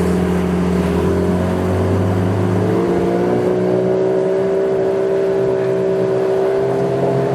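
Small fishing boat's motor running steadily, its pitch rising about three seconds in as it speeds up, then holding level.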